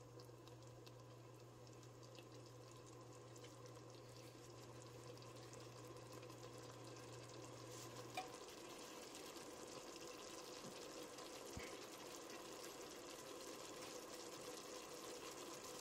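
Faint simmering and sizzling of a thick kadhi curry cooking in a pot, with a ladle stirring it; a single light click about eight seconds in.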